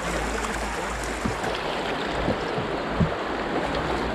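River water rushing and gurgling around an open canoe as it runs an easy riffle, with a few short splashes along the way.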